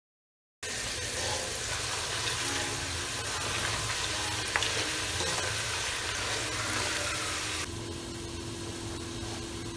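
Potato slices frying in hot coconut oil in a stainless steel pot, a loud steady sizzle while a slotted spoon stirs them, with one sharp click partway through. Near the end the sizzle cuts off and a quieter steady hum remains.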